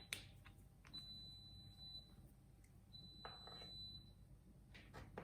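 Faint clicks and handling as an iPad charging cable is plugged into a wall socket's USB port. Two faint, high, steady tones about a second long each sound in between.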